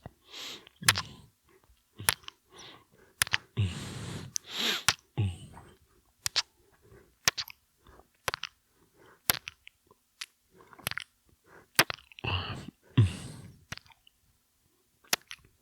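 Close-miked kissing: wet lip smacks and mouth clicks at irregular intervals, with several long, heavy breaths between them.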